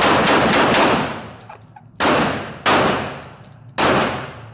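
Semi-automatic gunfire: a rapid string of shots, about four a second, that stops about a second in, then three single shots with pauses between, each trailing off.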